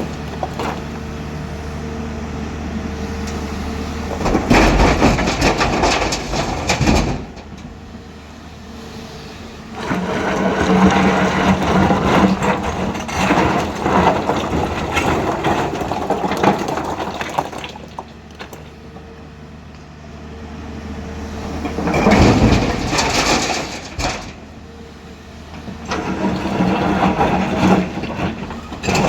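Hyundai 215 excavator's diesel engine running steadily while it loads boulders into a tipper truck. Four loud, noisy spells of rock and machine work rise over the engine, each lasting a few seconds.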